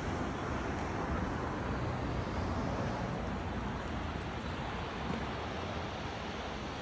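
Steady rush of ocean surf breaking on a beach, mixed with wind on the microphone.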